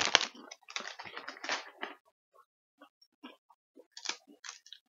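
Plastic snack packaging crinkling in irregular bursts for about two seconds, then a few scattered light taps and rustles of packages being handled.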